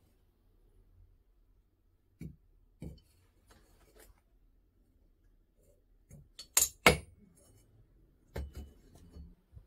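Freshly cast aluminium ingots being knocked out of steel ingot molds: a couple of dull knocks a couple of seconds in, then two sharp, loud metallic clinks about seven seconds in as bars come out onto the block, and a quick run of further knocks near the end.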